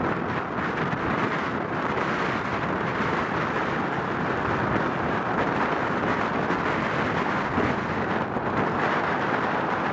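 Boeing 737-800's CFM56-7B turbofan engines at takeoff thrust during the takeoff roll: a steady, broad rumble of jet noise.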